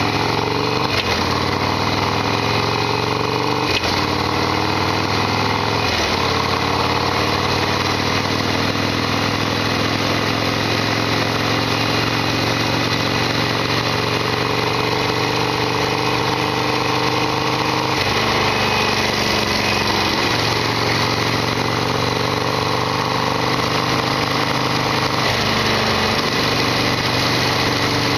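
Harley-Davidson Sportster XL1200R's 1200 cc V-twin running under way: it climbs in revs through the gears, with shifts about a second, four and six seconds in, then holds a steady cruise with a few brief drops in revs later on.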